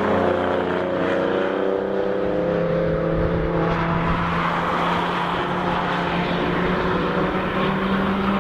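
Cars on the Nürburgring Nordschleife driving past at speed, several engine notes overlapping. One engine's pitch slides down and drops away about three and a half seconds in, while another keeps running steadily.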